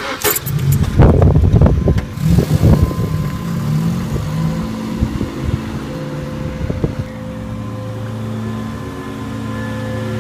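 A car's engine running as the car drives off and moves along slowly. The sound is louder and uneven with knocks for the first couple of seconds, then settles into a steady hum.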